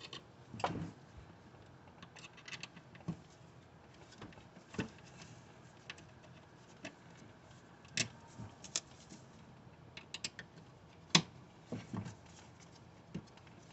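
Scattered light clicks and taps of hand work with a screwdriver and small screws as T10 Torx screws are backed out of a laser cutter's side panel, with the sharpest click about eleven seconds in.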